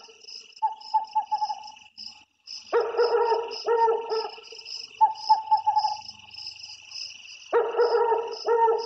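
Night ambience sound effect: crickets chirring steadily, with a dog barking in pairs of barks about three seconds in and again near the end, and fainter quick yips between.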